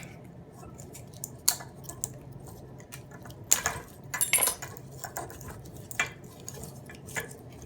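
Small metal parts of a tool battery pack clicking and clinking as its top connection pieces are pulled off by hand: a handful of separate sharp clicks, the loudest about three and a half seconds in.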